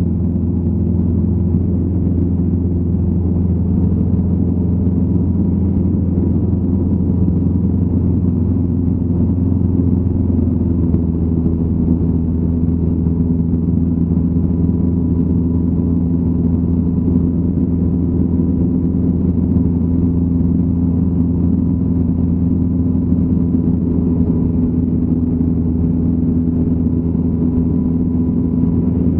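Light aircraft's piston engine droning steadily in cruise, heard from inside the cockpit, with a faint steady high tone above it.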